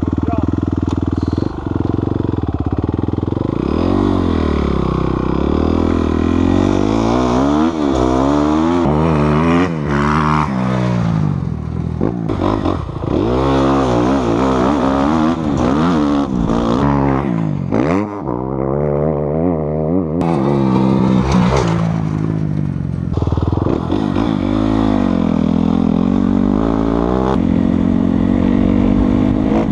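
Kawasaki KX dirt bike engine under riding load, the revs repeatedly climbing and dropping back as the rider throttles up, shifts and rolls off.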